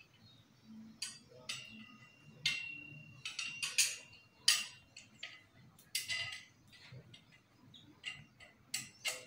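Irregular metallic clinks and taps, a dozen or so, some followed by a brief ringing: hardware being handled and knocked against a steel window grille.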